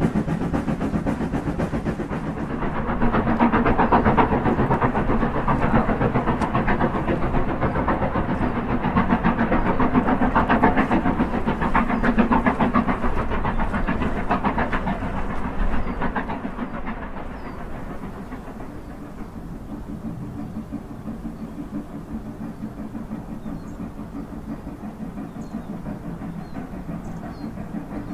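Steam locomotive hauling its carriages, a fast rhythmic clatter with hiss. Loudest over the first half, easing to a quieter steady run after about 16 seconds.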